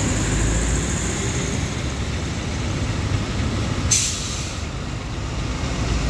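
Heavy road traffic passing close by on a wet road: truck and bus engines rumbling with tyre noise, a faint high whine fading in the first second and a half, and one short, sharp hiss about four seconds in.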